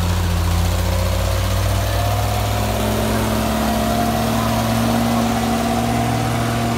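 Diesel engine of a loaded Mitsubishi Fuso 6x2 truck running under load as the truck drives past close by, its pitch rising a little about two seconds in.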